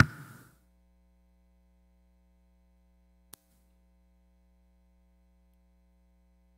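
Near silence: room tone with a steady low hum. A loud knock at the very start dies away within half a second, and one faint click comes about three seconds in.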